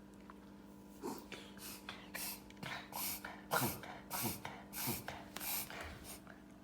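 Dog sneezing over and over, a quick series of about eight short breathy bursts, roughly two every second.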